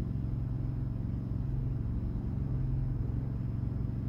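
Steady low mechanical hum with a few fixed tones, unchanging throughout.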